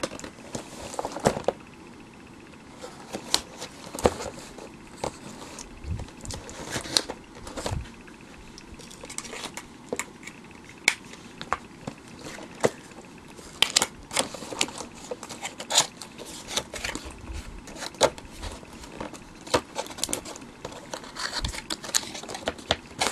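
A cardboard box being opened by hand: packing tape slit and torn, the flaps worked open and the packed tripod slid out, giving irregular sharp clicks, scrapes and crinkles of cardboard and packaging.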